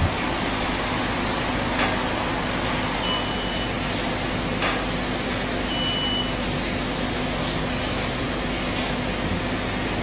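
Sharp Carousel microwave oven running with a steady fan whoosh and low electrical hum. Two short high-pitched beeps come about three and six seconds in.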